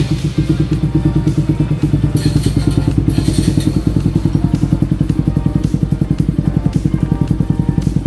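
Bajaj Pulsar NS200's single-cylinder engine catches and settles into a steady idle through an aftermarket Apido muffler, with an even, rapid exhaust pulse. The muffler's added fibre packing has been taken out, leaving only the old compacted packing inside, as a test of a louder, rounder tone.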